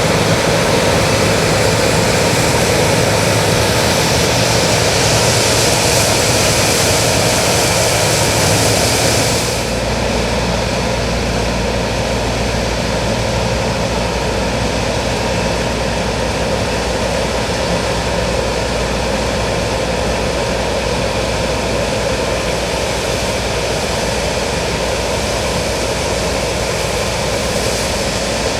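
New Holland CX8090 combine harvester running with a loud, steady mechanical drone. About ten seconds in the sound changes: the hiss falls away and a deeper hum takes over.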